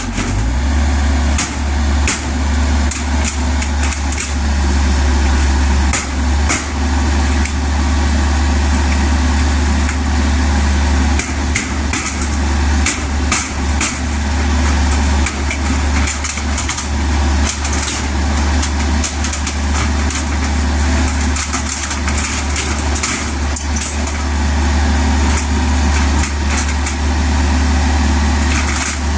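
Kubota U50 mini excavator's diesel engine running steadily, getting louder just after the start, with frequent sharp metal clanks and knocks throughout.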